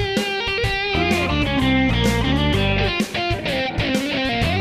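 Background music: a rock track led by electric guitar over bass and a steady drum beat.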